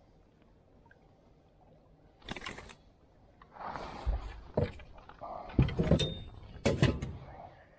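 Several knocks and rattles as a metal-framed landing net is lifted over a pontoon boat's rail and set down on the deck with a netted fish in it. The knocks start about two seconds in and are loudest near the end.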